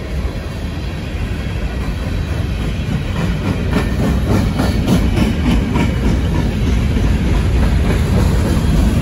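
Freight cars of a long mixed manifest train rolling slowly past: a steady low rumble of steel wheels on rail. A run of sharp wheel clicks comes in the middle, and the rumble grows louder toward the end.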